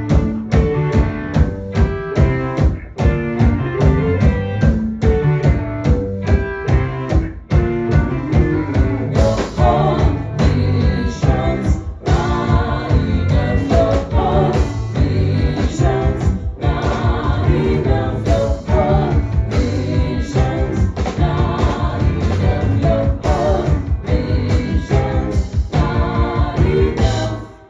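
Live rock band playing with drums, guitar and bass to a steady driving beat, with singing coming in about a third of the way through. The song stops abruptly at the very end.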